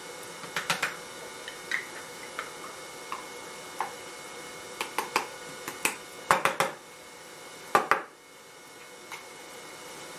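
Irregular sharp taps and clicks of a small hand-held sand-casting core box being handled and knocked, some in quick clusters, over a steady hum.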